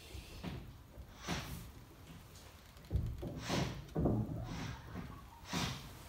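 Handling noises on a tabletop: a series of short rustles and soft knocks as a coil of thin copper wire is picked up and moved about, the loudest knocks coming in a cluster about halfway through.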